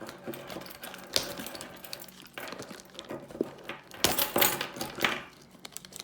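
A set of keys jangling and scraping as they are worked against a sealed trading-card box to cut it open, with irregular clicks and crinkling of the box's wrapping, busiest about four seconds in.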